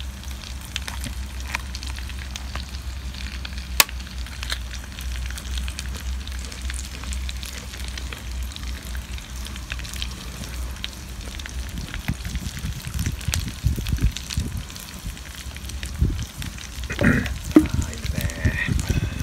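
Pieces of meat sizzling in a frying pan over a campfire, a steady crackling hiss with small pops. A low steady rumble sits under the first two-thirds, and from about two-thirds of the way in there are louder irregular knocks and scrapes.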